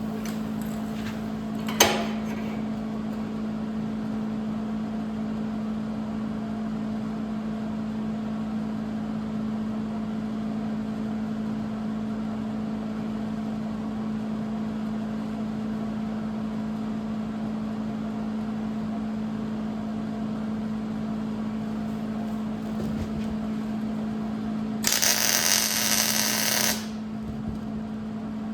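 Angle grinder running steadily on steel, with one sharp clank about two seconds in and a louder, harsher burst of grinding lasting about two seconds near the end.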